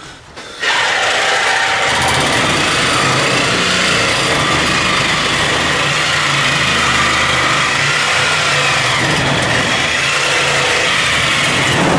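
A motor running steadily after a sudden start just under a second in, with a low hum under a wavering whine, like a power tool held on.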